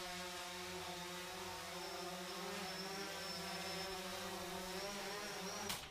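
A steady mechanical drone, a buzzing hum over a hiss, that holds level and cuts off abruptly near the end.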